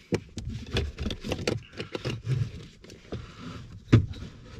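Irregular clicks, knocks and rubbing of hands working tight-fitting rubber coolant hoses onto the heater core pipes, with one sharper knock near the end.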